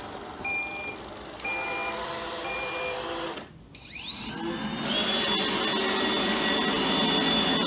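Roomba robot vacuum starting up: short beeps about once a second at first, then its motors spin up with a rising whine about four seconds in and it runs steadily from there on as it begins cleaning.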